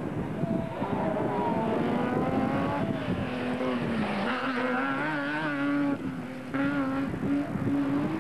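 Rally car engine revving hard on a gravel stage. Its pitch climbs over the first few seconds, drops briefly about four seconds in, then holds high with a slight waver.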